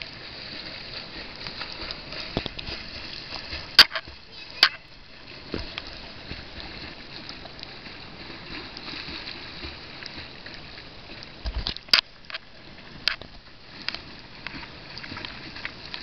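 A swimmer's legs kicking and splashing water steadily while he holds a kickboard out in front. A few sharp knocks cut in, about four seconds in and again around twelve seconds.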